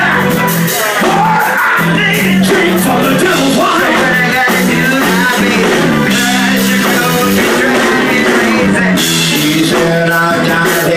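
Rock-and-roll band music with a steady bass line and a woman singing over it.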